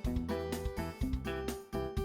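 Upbeat background music with a steady beat, a bass line and short plucked and keyboard-like notes.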